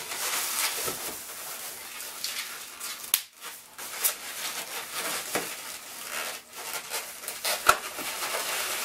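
White 260 latex modelling balloons being twisted and handled: the latex rubs and crackles under the hands, with two sharp clicks, one about three seconds in and a louder one near the end.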